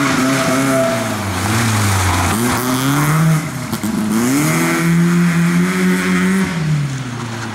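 BMW E30 3 Series rally car's engine revving hard through a tight section, its pitch climbing and falling with throttle and gear changes, holding high for a moment before dropping as the driver lifts off near the end.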